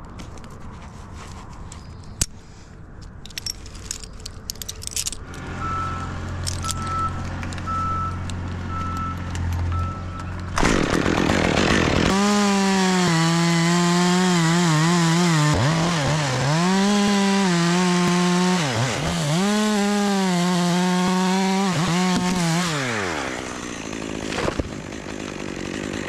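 Stihl top-handle chainsaw run at full throttle and cutting an oak limb, its pitch sagging several times as the chain bites into the wood, then dropping back off near the end. Before it, a few seconds of clicks and rattles, then a low steady hum.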